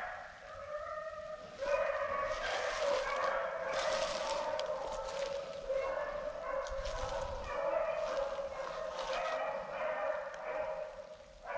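A pack of beagles baying in chase, several voices overlapping into a near-continuous cry that swells about two seconds in: hounds running a rabbit's track.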